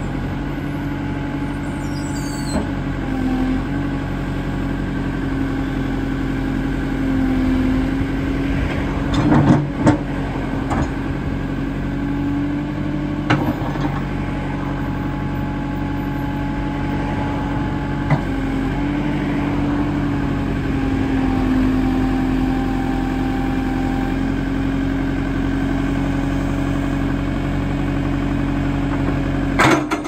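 JCB 3CX backhoe loader's four-cylinder diesel engine running steadily while the backhoe hydraulics are worked, its note dipping and rising slightly as the dig arm moves. A few short clunks come through, two close together about a third of the way in and one just before the end.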